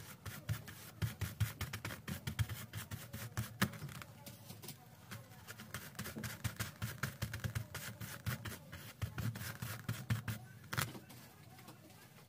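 A flat paintbrush dabbing thick acrylic paint through a plastic mesh onto a canvas: a rapid, uneven run of dry taps and scratches that stops near the end.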